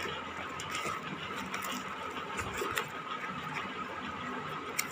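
Cardboard box and plastic wrapping being handled and rustled as a parcel is opened, with a few light clicks and taps.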